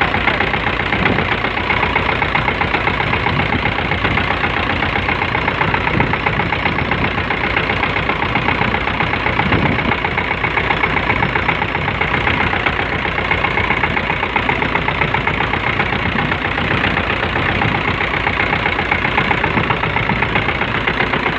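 A small fishing boat's engine running steadily with a fast, even chugging.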